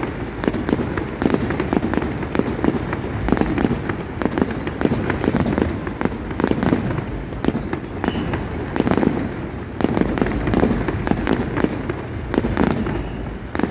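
Fireworks display: a continuous barrage of bangs from bursting shells, many overlapping in quick succession.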